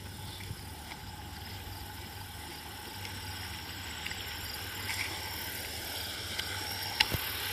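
Steady rush of fast-flowing creek water, growing slightly louder toward the end, with a low rumble underneath.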